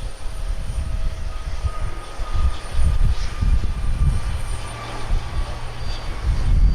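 Jet airliner engines running with a steady high whine during pushback, under a gusty low rumble of wind on the microphone.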